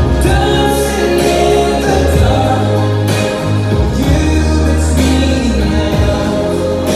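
A waltz played for the dancers, with a singing voice over long, held notes and a steady bass.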